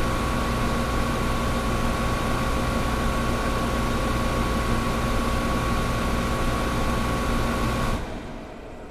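Old window air conditioner running with a steady rushing hiss, a low hum and a thin whine. Near the end it cuts down sharply, the hum and whine stopping and leaving a much fainter hiss that keeps fading.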